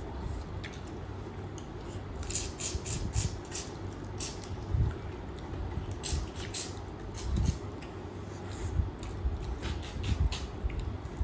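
Close-up chewing and mouth smacks of someone eating meat: clusters of wet clicking every few seconds, with a few dull low thumps.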